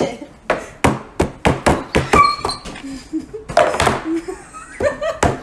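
Hands slapping a wooden tabletop in a quick, uneven run of sharp thuds, several a second, pausing briefly about halfway through before more slaps.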